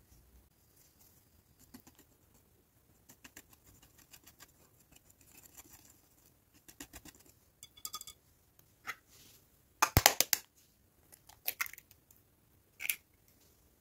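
Wire whisk stirring dry flour in a glass bowl, a run of soft, quick ticks and scratches. About ten seconds in come a few loud, sharp knocks as an egg is cracked against the bowl and broken into the flour.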